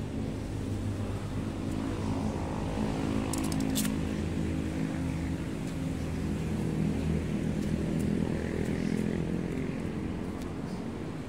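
Street traffic below: a vehicle engine hums and swells in the middle, then fades. A short burst of clicks comes about three and a half seconds in.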